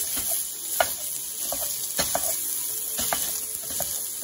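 Mild Italian sausage sizzling steadily in a preheated Ninja NeverStick nonstick sauté pan, with a few scattered taps and scrapes of a wooden spatula breaking the meat up against the pan.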